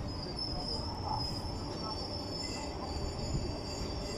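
Passenger train coaches rolling slowly into the station: a steady low rumble of wheels on rails, with a thin, high, wavering wheel squeal over it.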